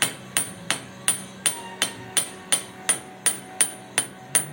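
Hammer striking metal in a steady rhythm, about three blows a second, each blow ringing briefly.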